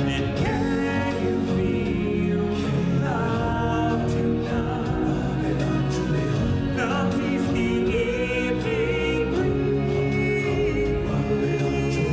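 Music with sung vocals: choir-like voices over a sustained accompaniment.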